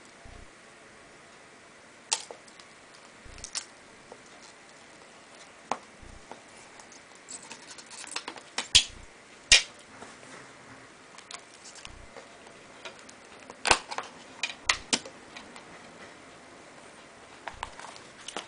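Scattered clicks, taps and light crinkles of hard clear plastic packaging being handled: the seal peeled off the iPod Touch's plastic case, the case opened and its parts set down on the table. A few sharp, louder clicks come about halfway through and again a few seconds later.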